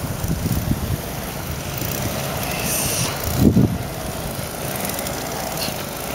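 Steady outdoor rushing noise with irregular low thumps, the loudest about three and a half seconds in.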